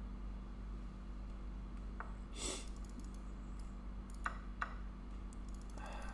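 A few short sharp clicks from a computer mouse and the online chessboard as moves are played in quick succession, over a low steady hum; the clicks come near the middle and in a quick flurry near the end.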